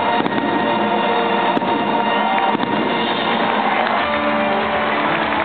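Loud music playing for a fireworks show, with a few faint firework bangs over it in the first couple of seconds.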